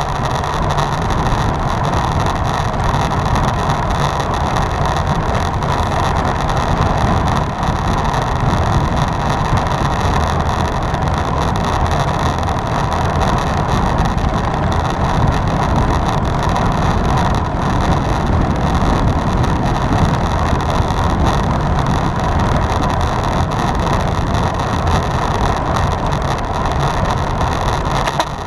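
Steady rush of wind over the microphone of a road cyclist's camera at race speed, with a low, even rumble from the ride underneath.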